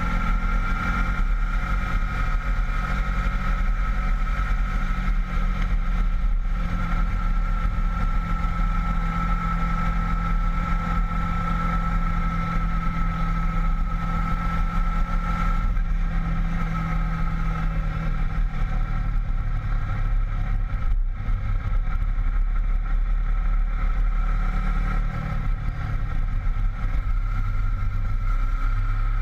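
Honda VFR800 V-TEC's V4 engine running steadily on the move, heard from the bike itself along with the rush of the ride. About two-thirds of the way through the engine note drops lower and holds there as the bike slows into a bend.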